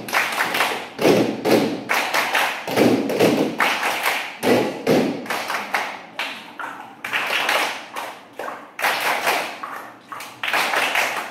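A group of children beating out a rhythm with hand claps and thumps, the strikes coming in clusters about once a second.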